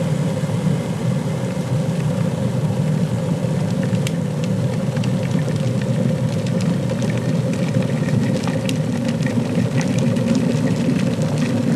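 WMF 3 kW electric kettle at a rolling boil: a steady low bubbling rumble of a litre of water boiling hard, with scattered light ticks.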